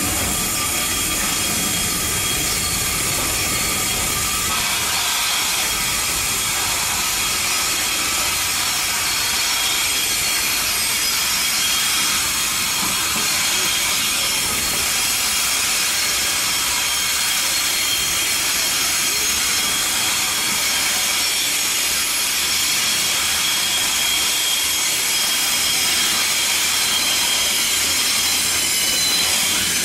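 Steady hiss of escaping steam from a standing steam locomotive, with a lower rumble that fades about four seconds in.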